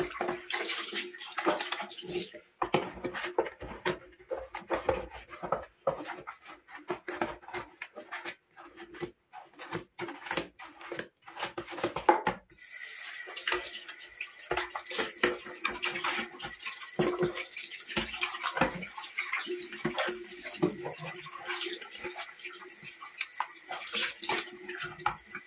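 Water running and splashing, with many short knocks and rubbing sounds of hand cleaning. The sound changes abruptly about halfway through.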